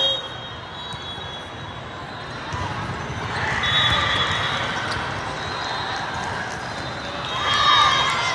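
Indoor volleyball rally: a referee's whistle blows as it opens, the ball is struck back and forth with dull knocks, whistles sound again midway, and players shout near the end as the point is won.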